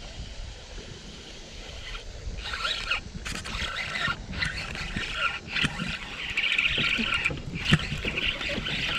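KastKing Valiant Eagle baitcasting reel cranked hard as a hooked fish is reeled in: a whirring that starts about two seconds in and comes in spurts, over a low wind rumble on the microphone.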